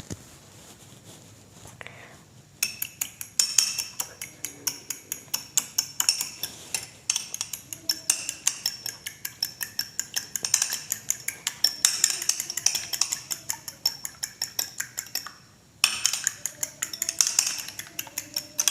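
Eggs being beaten by hand in a bowl: the utensil strikes the bowl in a fast, steady clicking rhythm of several strokes a second. It starts about two and a half seconds in, stops for a moment near the end, then goes on.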